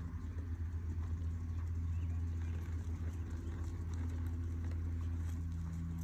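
A horse's hooves stepping in soft arena sand as it moves along under a rider, over a steady low hum.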